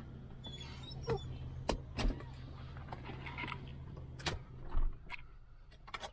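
Car engine idling with a steady low hum, and a handful of sharp clicks and knocks on top. The engine cuts off near the end.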